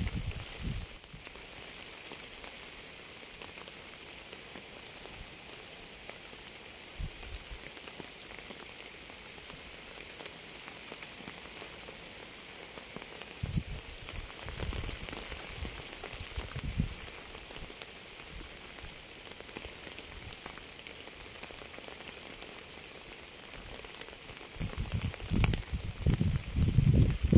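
Steady rain falling, an even hiss. Occasional deep low rumbles come through, briefly in the middle and louder and more frequent near the end.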